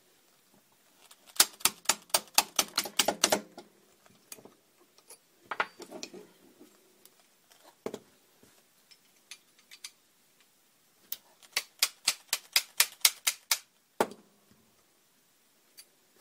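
Rapid sharp taps on a small pin punch driving a tight pin out of a steel 1911 pistol frame: two runs of about a dozen quick strikes, with a few single knocks in between.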